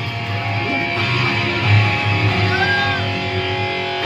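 Live rock band playing, with electric guitar chords ringing on over a steady low bass line.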